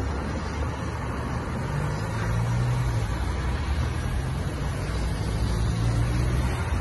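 Road traffic: cars and vans driving through the intersection, a steady low rumble of engines and road noise that swells a little as vehicles pass.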